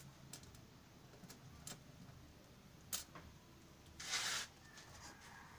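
A few faint, scattered clicks of small metal laptop screws being handled in a pile on a table. A brief scrape about four seconds in is the loudest sound.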